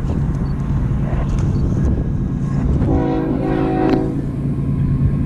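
Horn of an approaching diesel locomotive sounding one chord blast of about a second, about three seconds in, over the steady low rumble of the oncoming train.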